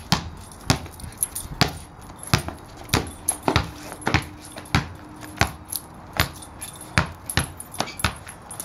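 A small ball bounced repeatedly on hard ground as it is dribbled, each bounce a sharp slap, a little more than one a second in an uneven rhythm.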